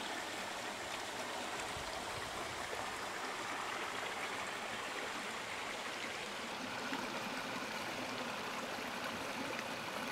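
Shallow rocky stream running, a steady, even rush of water.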